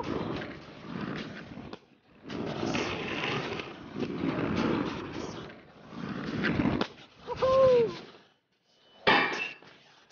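Aggressive inline skate wheels rolling on concrete and grinding along a concrete ledge, a rough scraping noise that comes in stretches. A short wavering high sound comes about seven and a half seconds in, and a sharp hard clack of a landing about nine seconds in.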